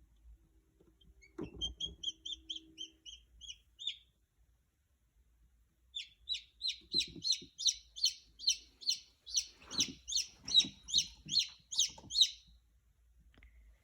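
A newly hatched chick peeping: a short run of high, even peeps, a pause, then a longer and louder run at about four peeps a second.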